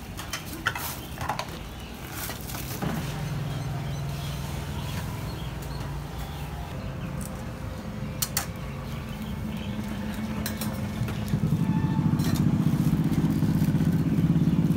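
A motor vehicle engine running steadily, getting louder about eleven seconds in, with a few clinks of metal utensils and dishes in the first seconds.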